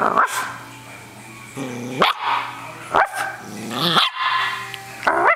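Puppy barking: about five short, sharp barks, roughly a second apart.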